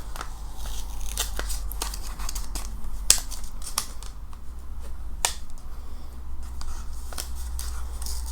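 Small paper envelope being opened: irregular crisp clicks and paper rustles, over a steady low hum.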